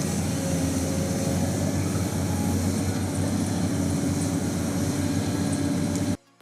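Heavy machinery running with a steady, dense noise and a strong low hum, cut off abruptly near the end.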